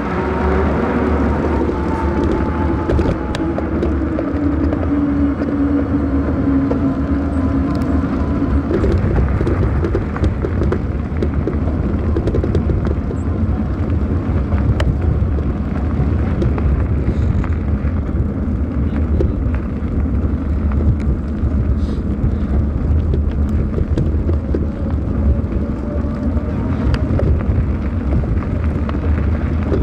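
Wind buffeting the microphone of a camera riding on a moving bicycle, a steady heavy rumble throughout. Over the first several seconds a droning tone slowly drops in pitch and fades.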